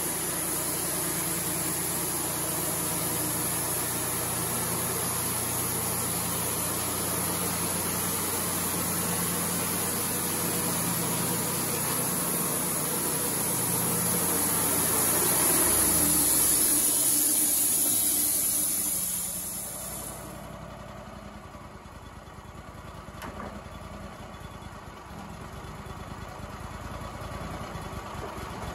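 Engine of a Wood-Mizer LT35 band sawmill running steadily with a high hiss over it. It swells louder a little past halfway, then drops abruptly about two-thirds of the way in to a quieter, steadier idle.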